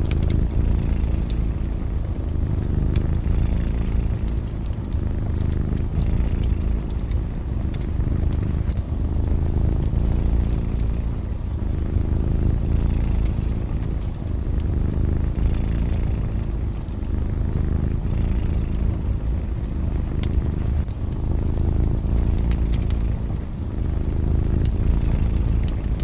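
Cats purring, a low continuous rumble that rises and falls in slow waves, with a fire crackling in scattered small pops over it.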